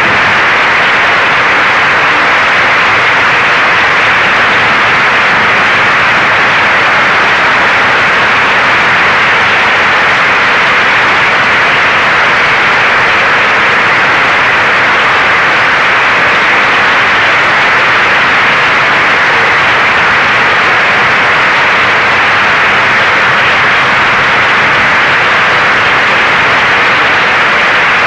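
Audience applauding: a steady, dense sound of many hands clapping, with no single claps standing out.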